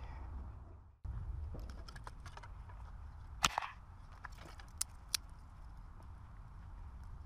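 Small kindling campfire of split wood sticks catching and burning, crackling with a few sharp pops, the loudest about halfway through, over a low rumble. The sound cuts out briefly about a second in, then resumes.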